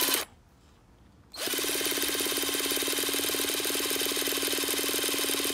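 Cordless drill spinning over a Traxxas Nitro Rustler's small nitro engine to crank it. A short spin ends just after the start, then a steady, even spin begins about a second and a half in. The engine is not firing yet; the cranking is drawing nitro fuel into the fuel line.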